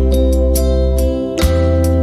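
Instrumental music: a run of short notes over held low bass tones.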